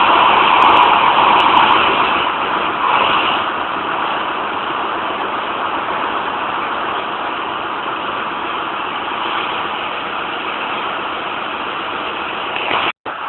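Steady din of a ship's engine-room machinery running, with a momentary break near the end.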